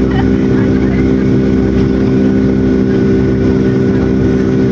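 Jet airliner's turbofan engine heard from inside the cabin during the climb after takeoff: a loud, steady drone with several low humming tones and a faint steady whine above them.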